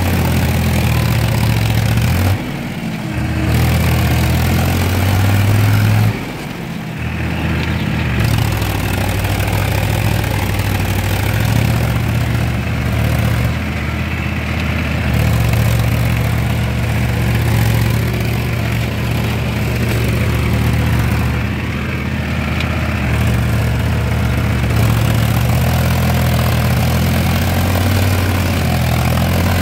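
Tractor diesel engine running steadily as the tractor is driven through a flooded paddy field. The engine's sound dips briefly twice, about two and a half and six seconds in.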